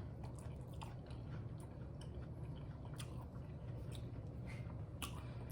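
A person chewing a mouthful of loaded quesadilla close to the microphone, with a few faint, soft mouth clicks over a low steady hum.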